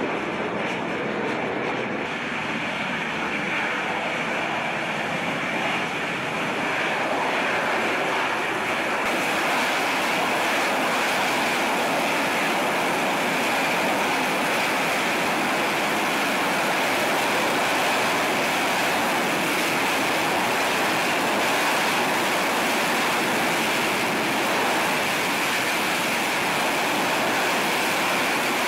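AV-8B Harrier II's Pegasus turbofan running at hover thrust as the jet descends for a vertical landing on a carrier deck: steady jet noise with a high whine, growing louder and brighter about nine seconds in.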